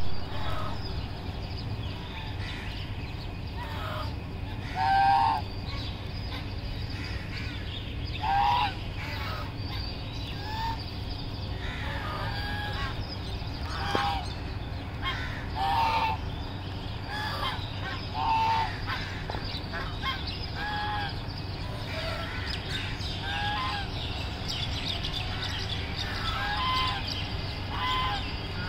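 A flock of domestic geese honking: short single calls every second or two, over a steady low background hum.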